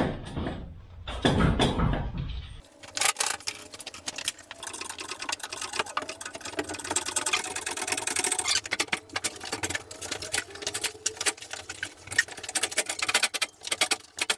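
Rapid, dense clicking and clattering of hand tools and metal parts as the engine is unbolted and hoisted out of the chassis. A louder stretch with a low rumble opens it and cuts off suddenly after about two and a half seconds.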